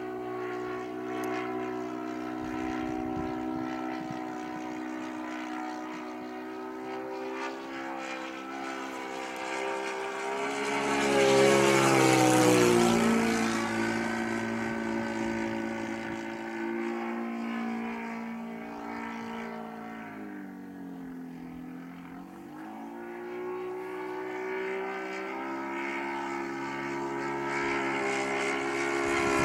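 Saito 220 four-stroke engine of a Hangar 9 Extra 260 model aerobatic plane running in flight, a steady propeller drone. About twelve seconds in it comes past close and loud, its pitch dropping as it goes by. Around twenty seconds in the pitch dips and then climbs again.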